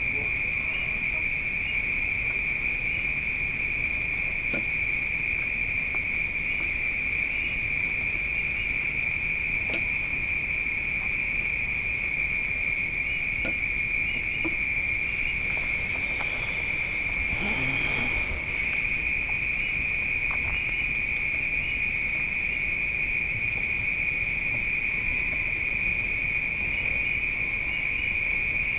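Night insects, crickets, trilling continuously at two steady high pitches, the higher one dropping out briefly about 23 seconds in.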